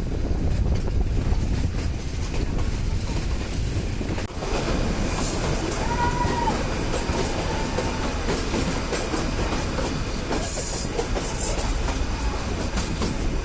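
Nilgiri Mountain Railway train running on its metre-gauge track: a steady rumble with the clickety-clack of the carriage wheels over the rail joints.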